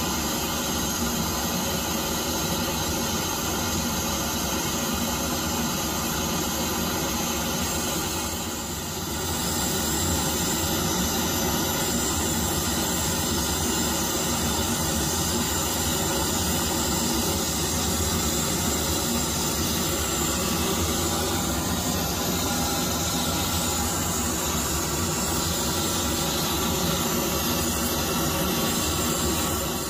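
Steady hiss of a forced blast of air and flame into glowing charcoal heating a clay crucible to melt gold. It dips briefly about eight seconds in.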